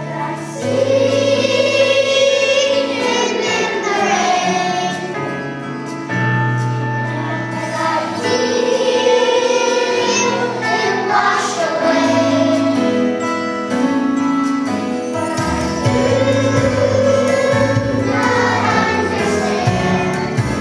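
Young children's choir of second graders singing a song together, over an instrumental accompaniment of held low notes that change every couple of seconds.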